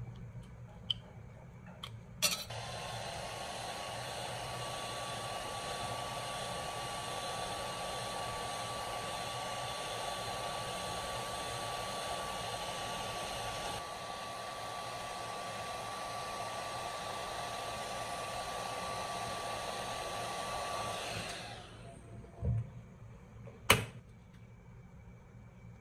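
Electric heat gun running steadily, its blower noise carrying a steady whine. It starts with a click about two seconds in and runs down a few seconds before the end, followed by a thump and a sharp click.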